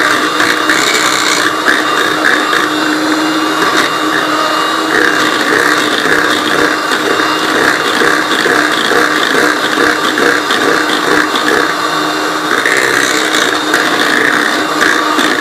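Electric mixer running steadily, its beaters going through cake batter of butter, sugar, eggs and essence before the flour goes in.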